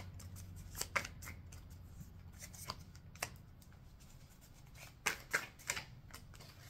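Tarot deck shuffled by hand: a run of quick card flicks and taps, with a louder cluster about a second in and another about five seconds in.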